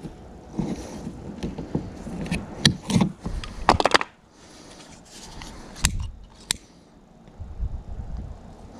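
Rope being handled and cut with a hand cutting tool: scraping, rustling and sharp snips, loudest just before four seconds in. After a pause come two sharp clicks of a disposable lighter being struck to melt the cut rope end so it won't fray, then a low rumble near the end.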